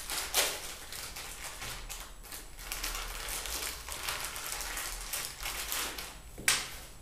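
Plastic packaging bag crinkling and rustling as it is handled and torn open, with two sharp crackles: one about half a second in and a louder one near the end.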